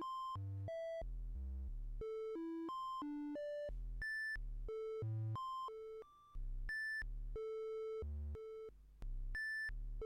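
Roland System-1m synthesizer playing a sequenced line of triangle-wave notes, filter wide open, about three notes a second, with the note velocities varying. Many notes start with a low pop: the envelopes popping when velocity values vary.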